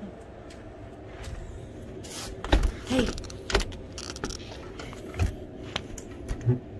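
A door clunking open about two and a half seconds in, followed by scattered knocks and clicks as it is walked through.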